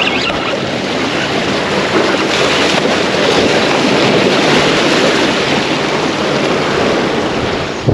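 Steady rush of strong wind and surf, with wind buffeting the microphone. A single sharp knock right at the end.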